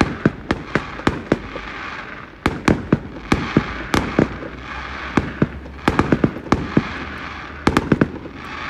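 Fireworks display: an irregular run of bangs and pops, several a second, with a cluster of them near the end.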